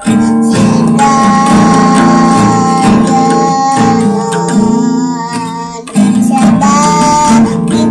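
A young child singing a melody to a strummed acoustic guitar, with a brief break just before six seconds in.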